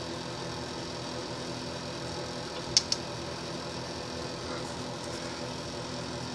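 Steady hum of a space heater running, with two light metal clicks close together about three seconds in as the loosened housing on the snow blower's auger shaft is turned by hand.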